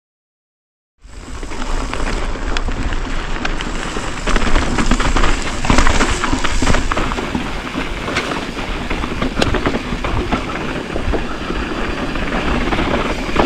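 Mountain bike riding fast down a dry dirt trail: tyres crunching over loose dirt and rocks with the bike rattling and clattering over bumps, under a steady low wind rumble on the microphone. It starts about a second in, after silence.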